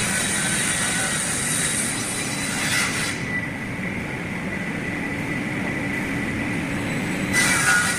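CNC block cutting saw running with a steady low rumble. A harsh high hiss sounds from the start to about three seconds in and comes back near the end.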